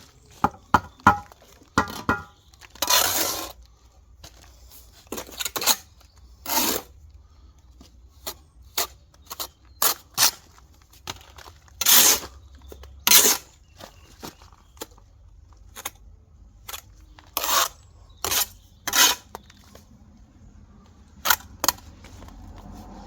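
Steel brick trowel working mortar and concrete blocks: sharp clinks and taps at irregular intervals, with several short scraping strokes.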